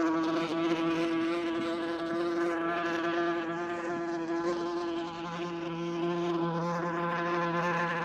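Wasp buzzing in flight: a steady, unbroken buzz with many overtones and a slight waver in pitch.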